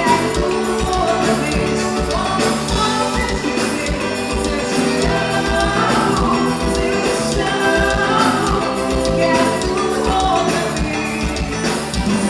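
Forró band playing a song with a steady beat and a singing voice.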